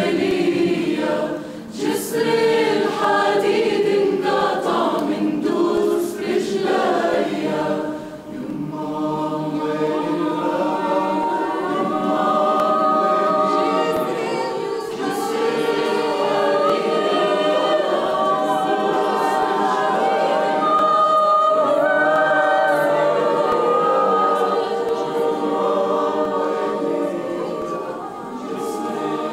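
Mixed choir of men and women singing an Arabic song a cappella, many voices holding overlapping harmony parts, with a few short breaks between phrases in the first several seconds.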